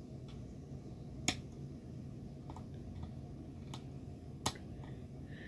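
A few sharp little clicks over a low steady room hum, with two louder ones about a second in and near the end: a Wheelock MT fire alarm horn being handled while its tone setting is changed.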